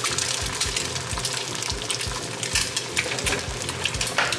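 A fried egg sizzling and crackling in a frying pan on an induction hob, with a low pulse repeating about two to three times a second beneath it.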